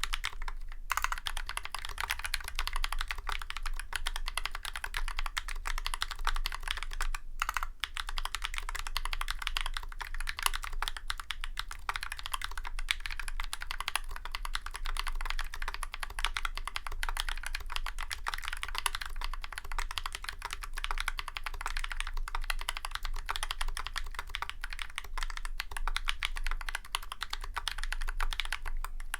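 Steady, fast typing on a Drop CTRL High Profile mechanical keyboard with tactile YOK Holy Panda switches, lubed with Krytox 205g0 and Tribosys 3203, and GMK keycaps. The keystrokes come as dense clicks and clacks, with a brief pause about seven seconds in.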